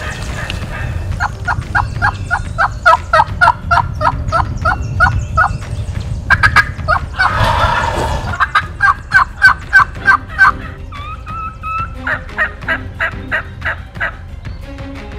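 Turkey yelps in quick runs of about three to four a second, broken by a rough gobble about seven seconds in and a few shorter notes near the end.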